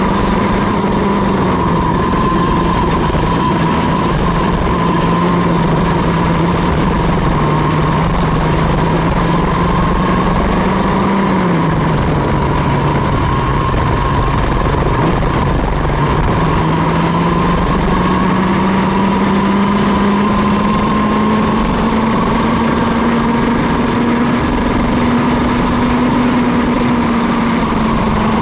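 Mini ROK kart's 60cc two-stroke engine running hard, heard from on board the kart. Its pitch drops about a second in and again around eleven seconds, then climbs slowly through the second half.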